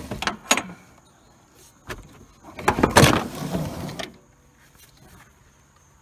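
Cub Cadet LTX 1050 mower deck scraping and clanking against the mower's metal bars as it is pushed and dragged out from under the tractor. A few knocks come in the first half second, then a louder stretch of scraping and clatter from about two and a half to four seconds in, as it comes loose.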